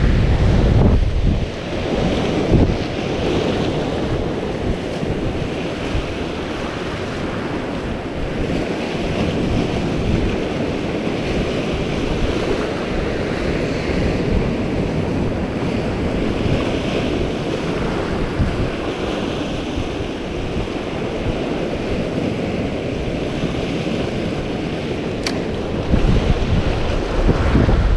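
Sea surf breaking and washing over rocks, with wind buffeting the microphone; the gusts rumble hardest about a second in and again near the end.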